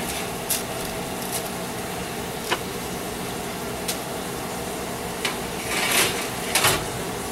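A convection oven's fan running with a steady hum, over which metal baking sheets clink lightly a few times and then scrape twice, louder, about six seconds in, as they are slid in and out across the oven racks.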